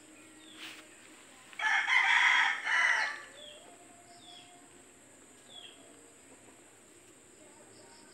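Rooster crowing once, a loud call about a second and a half long starting about one and a half seconds in. Faint short chirps follow every second or so.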